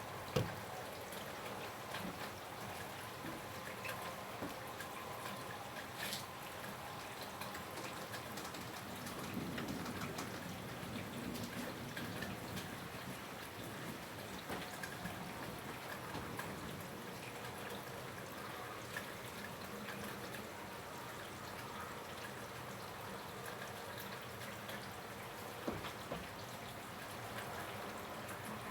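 Rain falling steadily outside, an even hiss with scattered drips and taps, a sharper tap about half a second in.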